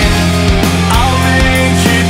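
Rock music with distorted guitars and a steady drum beat.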